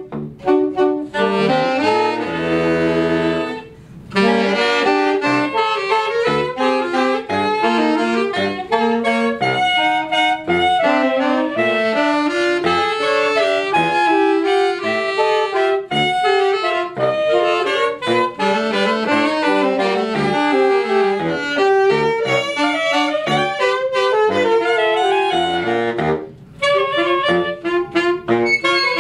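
A small ensemble with a soprano saxophone playing a lively melodic piece, the soprano saxophone out of tune against the others: a school loaner horn that could not be tuned properly. A chord is held a couple of seconds in, and the playing breaks off briefly near the end before going on.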